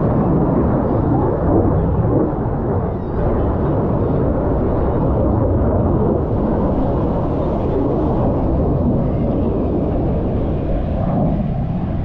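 Aircraft engine rumble from a display plane flying overhead, a steady low roar with no breaks.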